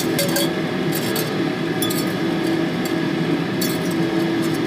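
Coiled copper wire clinking lightly against a glass beaker a few times as it is dropped into acid, over a steady hum.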